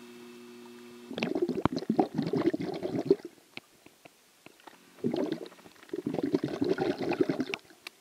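Water gurgling and bubbling around a camera held under the water of a spring, in two bursts of about two seconds each with quiet gaps between. A faint steady hum in the first second.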